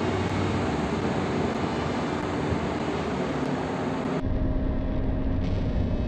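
Square-motor ceiling fan spinning fast: a steady whoosh of air from the blades with motor hum. About four seconds in the sound abruptly turns duller, leaving a lower rush with a faint steady hum.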